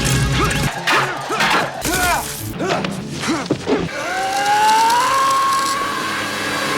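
A man's short grunts and pained cries with hits and crashes from an action-film soundtrack, then, about four seconds in, one long yell that rises in pitch and is held.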